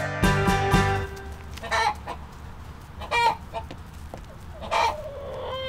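Hens clucking: three short calls, spaced about a second and a half apart.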